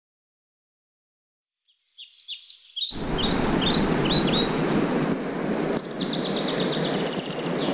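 Silence, then about two seconds in a songbird sings a run of short falling chirps. About three seconds in a steady rushing outdoor noise comes in under it, and near the end another fast, high trill sounds.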